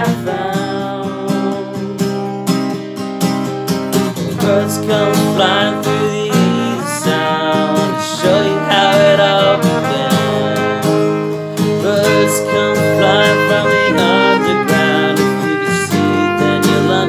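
Strummed acoustic guitar with singing, joined by a trumpet played with a metal mute carrying a melody line.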